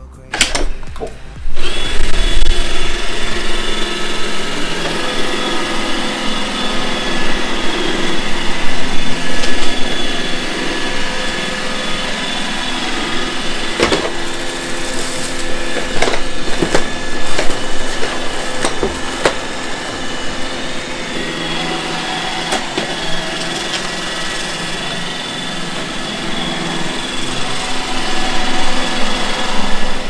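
iRobot Roomba e5 robot vacuum starting up about a second and a half in, then running: the steady whine of its vacuum motor and brushes on a wooden floor. Around the middle come several sharp knocks as it bumps into things.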